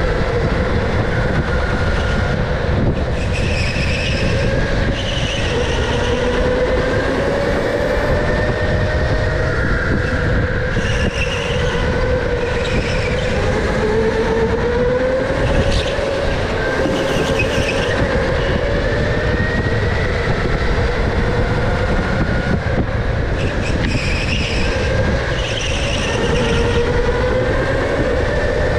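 Electric go-kart heard from onboard at racing speed: the electric motor's whine rises and falls in pitch as the kart speeds up and slows for corners, over a steady low rumble. Short higher-pitched squeals come every few seconds.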